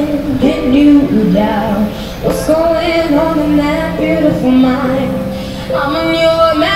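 A 13-year-old girl singing a melody into a microphone, with long held and sliding notes, while accompanying herself on an electronic keyboard.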